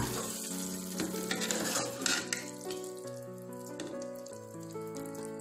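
Background music with held notes, under a hiss and a few clinks and scrapes of a metal ladle scooping cooked chicken liver and gizzards out of the broth. The hiss and clinks die away after about two and a half seconds, leaving the music.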